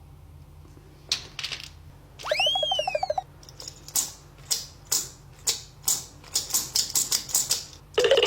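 A series of sharp clicks or pops: a few at first, then about two a second, coming quicker near the end. Once, a little over two seconds in, a short tone rises and falls.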